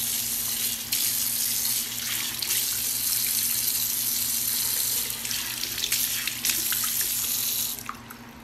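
Tap water running from a newly fitted washbasin faucet and splashing into the ceramic basin, a steady hiss that cuts off near the end as the tap is shut: the new basin and faucet are being tested.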